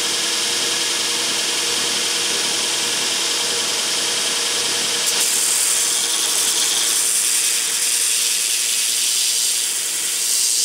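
Belt grinder running with its abrasive belt, grinding the steel spine of a knife blade made from a lawnmower blade. From about five seconds in the hiss brightens as the steel is pressed harder into the belt and throws sparks.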